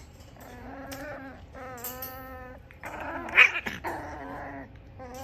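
Cavalier King Charles Spaniel puppies vocalizing while play-wrestling: two drawn-out, wavering whining cries, then a louder, harsher cry about three seconds in.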